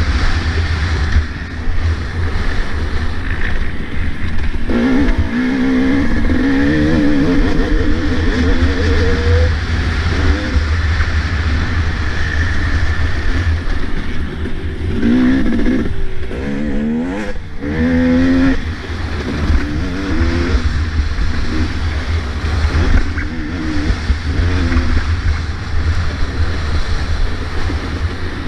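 Two-stroke motocross bike engine revving hard and easing off over and over, its pitch climbing and falling as it is ridden around a dirt track, with wind rushing over the helmet-mounted microphone.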